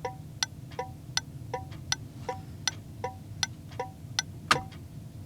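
HM 552 thermal turn-signal flasher relay clicking steadily with the left turn signal on and the engine off, running on battery voltage. The clicks alternate between a plain tick and a tick with a short metallic ring, about one and a third flash cycles a second.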